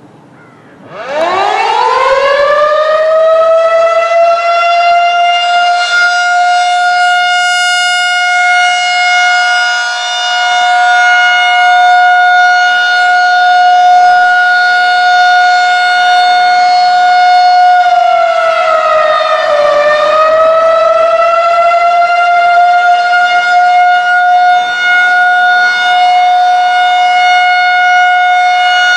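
Federal Signal 2001-SRN outdoor warning siren starting up about a second in, its wail rising quickly to a loud, steady single tone that holds. About two-thirds of the way through, the pitch sags briefly and climbs back.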